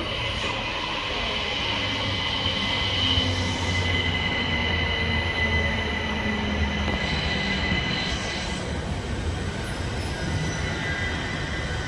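Southern Class 377 Electrostar electric multiple unit running into the platform. A low hum from the train sits under steady, high-pitched wheel squeal, and the squeal weakens after about eight seconds.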